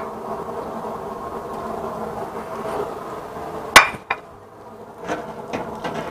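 Two-basket deep fryer with breaded salmon balls going into the oil: a steady buzzing hum, then a loud metal clank a little under four seconds in and a lighter one just after as the wire fryer baskets are handled, followed by a few softer clicks.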